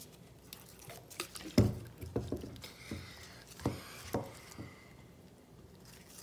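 Slime being stirred in a bowl: irregular wet squishes and clicks, with a few heavier knocks of the stirring utensil against the bowl, the loudest about a second and a half in. The slime is starting to clump and come away from the sides of the bowl.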